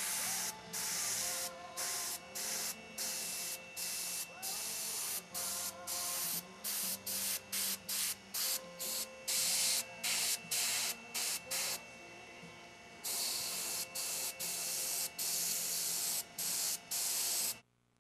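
Airbrush spraying paint onto a carved wooden snake in short on-off bursts of hiss, one to two a second, with a pause of about a second around two-thirds through. A faint steady hum runs underneath.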